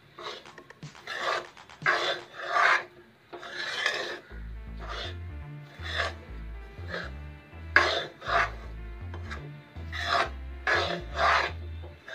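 Metal spatula scraping a thick paste of gram flour (besan) slow-roasting in ghee around a metal kadai, in repeated irregular scraping strokes, about one to two a second.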